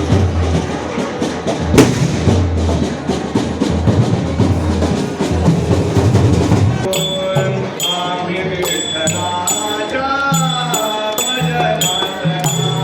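Sanai-chaughada ensemble: shehnai with chaughada drums. It opens with dense, fast drumming and jingling percussion, then about seven seconds in it changes abruptly to a wavering shehnai melody over a regular drum beat.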